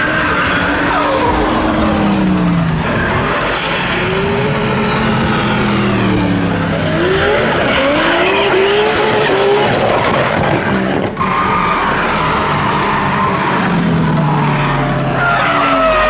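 Drift cars sliding sideways on a track: engines revving hard, the pitch climbing and falling again and again, over the squeal and scrub of skidding tyres. A brief drop-out about eleven seconds in.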